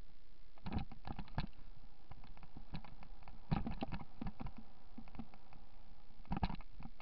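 Irregular bursts of crunching and crackling clicks from movement over a dry, leaf-strewn dirt trail, three clusters over a steady low hiss.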